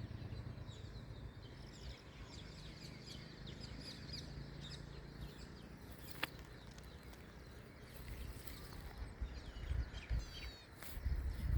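Small birds chirping and twittering in many quick, high notes, over a low rumble that comes in bursts near the end. A single sharp click about six seconds in.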